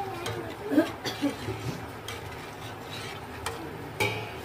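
Metal ladle stirring sheer khurma in a metal pot, scraping and clinking against the pot. A sharp knock comes about a second in, and a ringing clink near the end.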